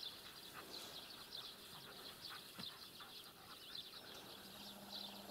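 Faint, quiet rural ambience: continuous high-pitched chirping, many short chirps repeating throughout.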